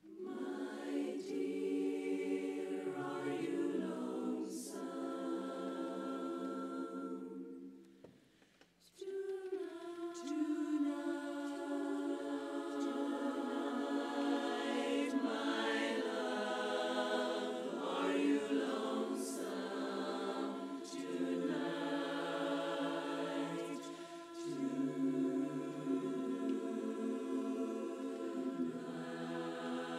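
Women's barbershop chorus singing a cappella in close four-part harmony, with a short break about eight seconds in before the chords resume.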